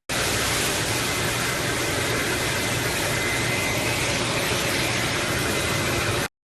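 Loud steady rushing noise with a faint high whine in it, starting and cutting off abruptly.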